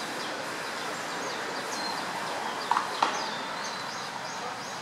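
Faint, short, high chirps of small birds over a steady outdoor background hiss, with two brief sharp sounds a third of a second apart near the middle.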